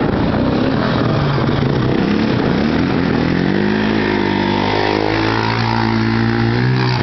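ATV engines: a sport four-wheeler accelerates, its engine pitch climbing a few seconds in and then holding steady, over the steady running of other four-wheelers close by.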